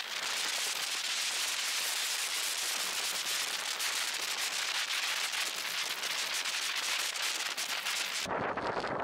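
Wind and road noise on the microphone of a camera mounted on a moving bicycle: a steady hiss full of fine crackles, which changes abruptly to a lower rumble of wind near the end.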